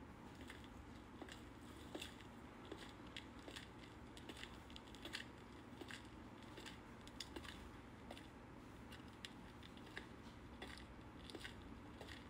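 Faint footsteps clicking on a hard concrete walkway, roughly two a second and a little irregular, over a low steady hum.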